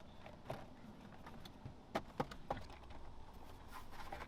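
Scattered light clicks and knocks of plastic dashboard trim being handled and pressed back into place: a few single clicks, then a small cluster near the end.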